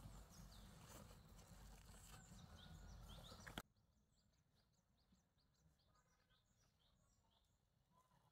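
Faint outdoor ambience with small birds chirping over and over. A steady background rush cuts off suddenly about three and a half seconds in, leaving quieter ambience in which the chirps go on.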